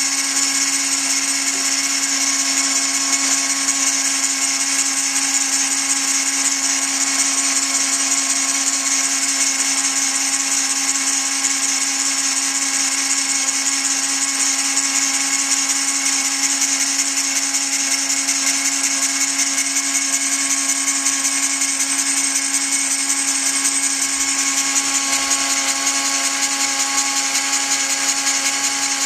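Dremel-type rotary tool running at high speed, belt-driving a homemade tool-post grinder spindle while its small stone grinds the jaws of a 7x mini lathe chuck. A steady high whine with a strong hiss that holds unchanged throughout.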